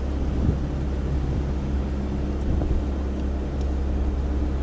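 1985 Sea Sprite motorboat's engine running steadily under way: a constant low hum, with wind and water noise over it.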